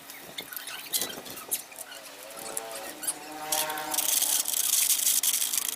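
Repeated rubbing or scraping strokes on a hard surface, getting denser and louder a few seconds in, with a bending pitched tone in the middle.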